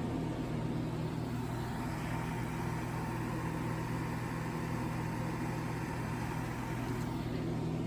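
1960s Rootes Tempair portable air conditioner running steadily: its Danfoss compressor humming under the even rush of its evaporator and condenser fans, a sound like a white noise machine.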